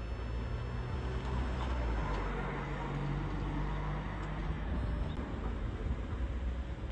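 Outdoor background noise: a steady low rumble with an even hiss over it.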